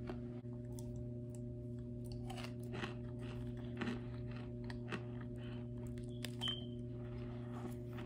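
Compacted cornstarch chunks crunching and crumbling in irregular soft crunches, over a steady low hum.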